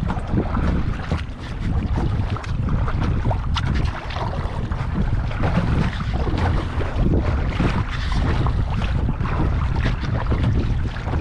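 Wind buffeting the microphone with a heavy, uneven rumble, over the irregular slap and splash of small choppy waves against a kayak's hull as it moves across the water.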